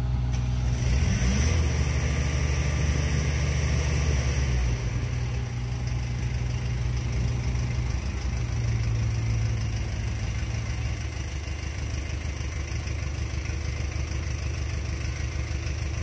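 Heavy diesel machinery engine running steadily, its low note easing a little about five seconds in.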